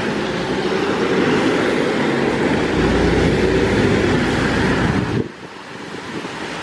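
City bus engine and wet-road traffic as a bus drives off, a steady rush of engine and tyre noise over the wet road. The sound drops suddenly about five seconds in.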